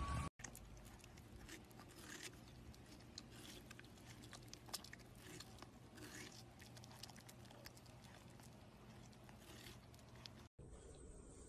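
Near silence: a faint steady hum with scattered soft clicks.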